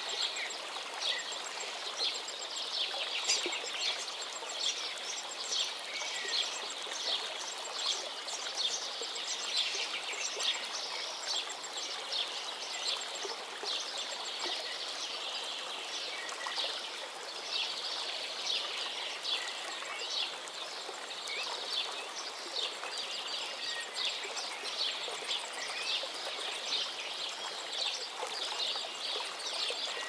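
Stream water rushing and gurgling over rocks in a steady wash, with small birds chirping over it throughout.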